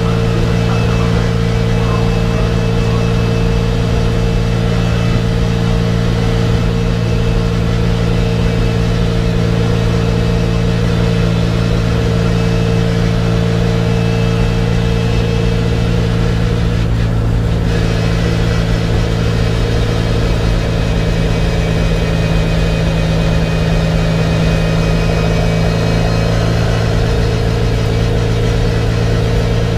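Race car engine heard from inside the cabin, running at a steady, unchanging pitch at a constant low speed, with road and wind noise.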